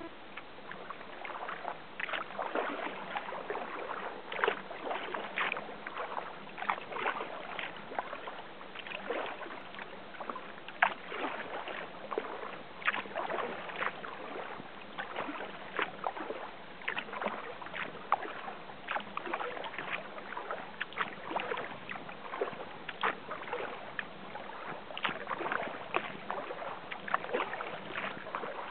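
Kayak paddle blades dipping and pulling through calm water, with small splashes in an uneven rhythm.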